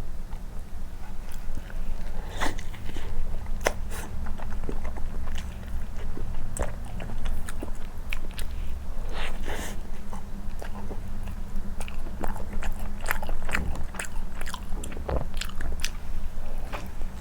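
Close-miked chewing of soft condensed-milk cream bread soaked in milk: irregular wet, sticky mouth clicks and smacks.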